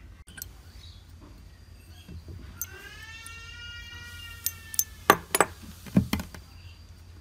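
Sharp metallic clicks and clinks of a rusty staple gun's metal body and a loose latch piece being handled, in a quick cluster in the second half, loudest about five seconds in.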